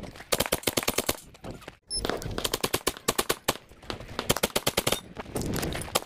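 Rapid strings of shots from a 9mm pistol-caliber carbine fired fast at targets, with a short break a little under two seconds in.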